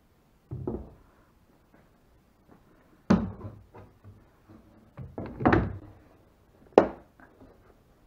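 Knocks and thunks of a one-handed bar clamp and a plywood deck panel being handled. There are about four separate knocks: one near the start, a sharp one a few seconds in, a quick cluster about two-thirds through, and a sharp one near the end.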